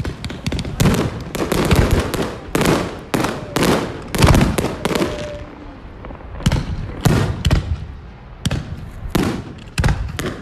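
Fireworks display: aerial shells launching and bursting in a rapid series of sharp bangs, a fraction of a second to a second apart, with a short lull a little past halfway.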